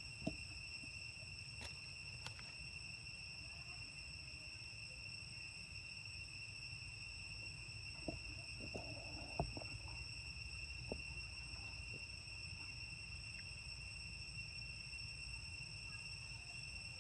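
Steady, unbroken high-pitched insect drone, like crickets, over a low rumble, with a few faint scattered clicks and taps.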